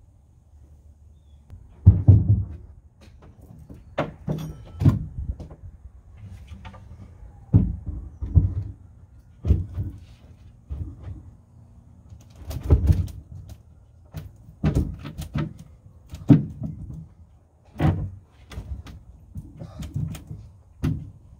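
Irregular wooden knocks and thumps, a dozen or so spaced unevenly, as boards are handled and set in place inside a wooden boat hull.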